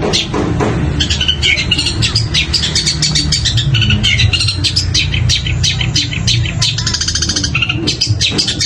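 Long-tailed shrike (cendet) singing a fast, unbroken run of sharp chips and short squeaky phrases, with a rapid rattling trill near the end, the mimicked calls of other birds strung together. A steady low hum runs underneath.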